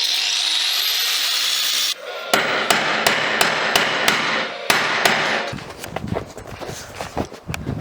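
A steady hiss with a rising whine for about two seconds, then a hammer striking metal in a regular run of blows, roughly three a second, trailing off into scattered knocks.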